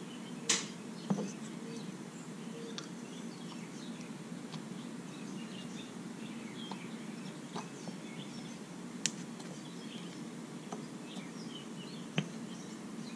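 Small brake master cylinder parts being handled: a few light clicks and taps of the spring, plunger and housing, over a steady low background hum with faint high chirps.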